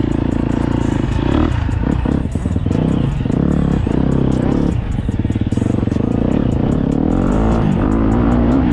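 KTM 250 SX-F four-stroke single-cylinder motocross engine under way, the rider working the throttle: the revs drop off briefly about two seconds in and again about five seconds in, then climb again near the end.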